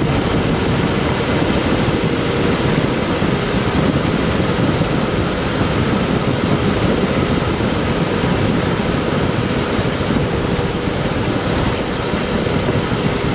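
Steady loud rushing noise of wind over the microphone, with a faint steady hum underneath.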